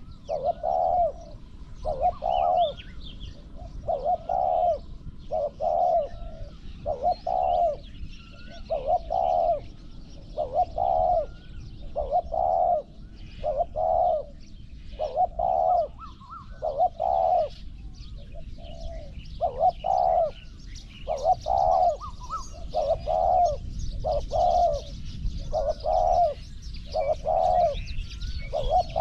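Spotted dove cooing over and over, a short phrase about every second and a half in a steady series. Faint chirps of small birds sound in the background.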